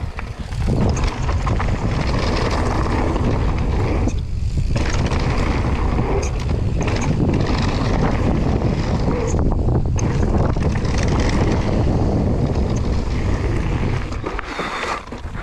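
Wind buffeting the camera microphone over the rumble of mountain bike tyres rolling fast on loose gravel, with a brief lull twice, easing off near the end as the bike slows.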